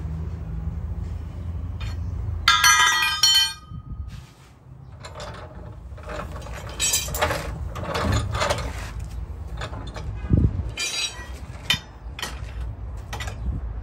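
Metal clanking and clinking of tools and steel parts during work on a truck differential: a loud ringing metallic clatter about two and a half seconds in, then scattered sharp knocks and clinks and one dull thud. A low steady hum sits underneath for the first few seconds.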